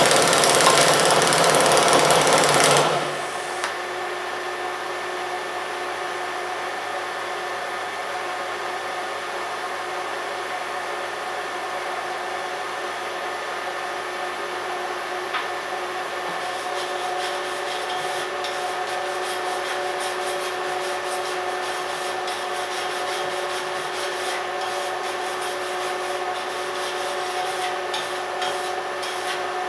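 TiPTiG hot-wire TIG arc welding stainless steel for about the first three seconds, a loud steady hiss, then the arc stops. A steady hum with a few held tones continues. From about halfway on, a hand wire brush scrubs scratchily over the fresh weld.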